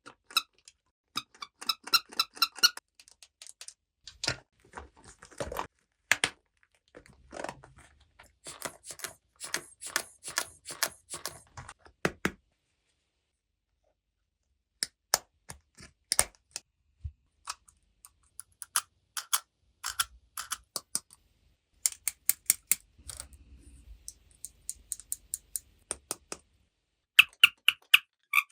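Small plastic toy pieces clicking, tapping and rattling as they are handled, in irregular clusters of sharp clicks with a brief pause about halfway.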